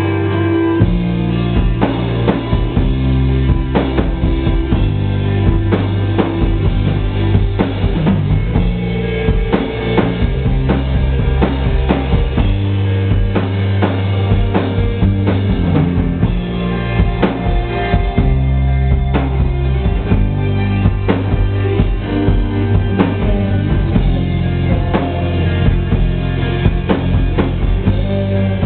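A rock band playing an instrumental passage. The drum kit's bass drum and snare come in right at the start and keep a steady beat under held low notes.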